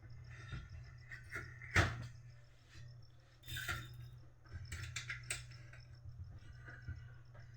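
Scattered clicks and knocks of plastic and metal parts being handled and seated as a pickup assembly is fitted into an HP LaserJet M1005 printer, the sharpest knock about two seconds in, over a steady low hum.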